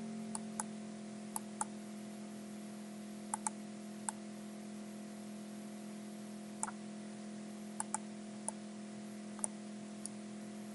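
Computer mouse button clicking about a dozen times at irregular intervals, often in quick pairs, as parts and directions are selected in CAD software. Underneath runs a steady low hum of several constant tones.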